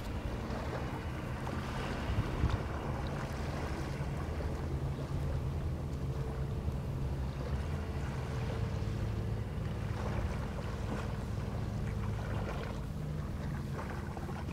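Engine of an aluminium crab-fishing workboat running steadily as it motors by, a low hum, with wind blowing on the microphone. A couple of brief knocks about two seconds in.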